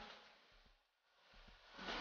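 Near silence: faint hiss dies away in the first second and swells back in near the end.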